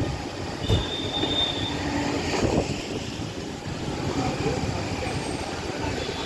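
A train running past: a steady rumble of wheels on the rails with a few knocks, and a thin high-pitched wheel squeal lasting about a second near the start.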